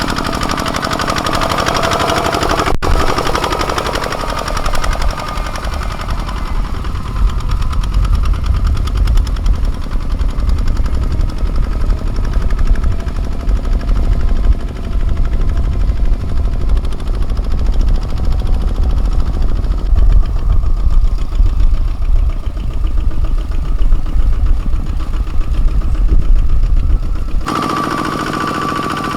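Single-cylinder diesel engine of a Kubota ZT155 mini tractor chugging under load while ploughing. The sound changes abruptly about three seconds in and again near the end, and is dominated by a heavy, deep rumble in between.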